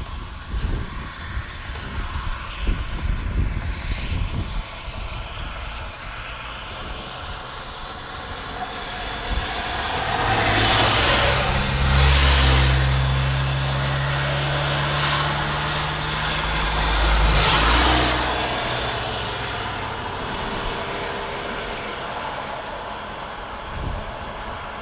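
Wind buffeting the microphone in gusts, then a motor vehicle passing by: a low engine hum and tyre noise swell up, peak about halfway through and again a few seconds later, and fade away.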